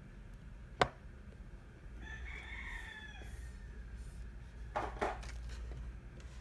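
A rooster crowing once in the background, one drawn-out call of about a second. Just before it comes a single sharp click, the loudest sound, and a few seconds later a short rustling scrape of something being handled.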